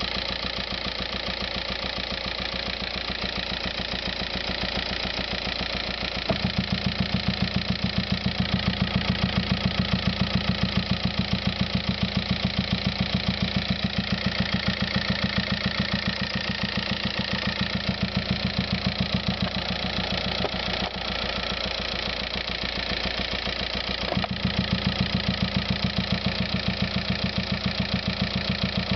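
Volkswagen Passat TDI diesel engine idling, with an unexplained rapid, even pulsing noise on top. The pulsing comes in about six seconds in, drops out for a few seconds after twenty seconds, then returns.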